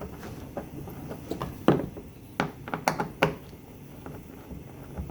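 Several sharp clicks and knocks of hand tools and hardware being handled. The loudest comes about a second and a half in, followed by a quick cluster of three or four.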